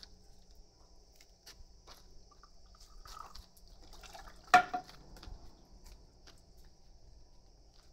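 Shishi-odoshi (bamboo deer scarer) knocking once about four and a half seconds in: one sharp knock with a short ring, amid water trickling and dripping into the basin.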